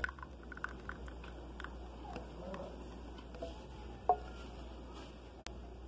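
Thick hot chocolate poured from a saucepan into a ceramic mug: soft splashing and small clicks, then one sharp clink about four seconds in as the pouring ends.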